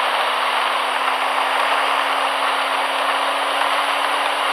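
Vehicle engine running steadily, a constant hum under a loud, even rushing noise.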